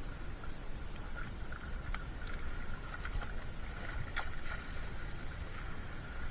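A fishing net and its plastic floats being handled by hand in a small boat: scattered light clicks and ticks, a few together about four seconds in, over a steady low rumble.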